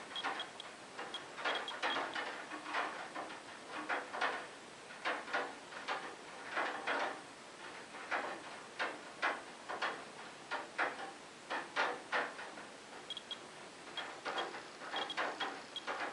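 Radiation dosimeter clicking out detections as short, high chirps in small irregular clusters, mostly at the start and over the last few seconds, among irregular scuffing and knocking noises.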